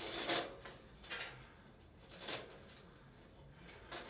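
Handling noise from a coiled generator propane hose with paper tags being moved about in the hands: a few short rustles about a second apart.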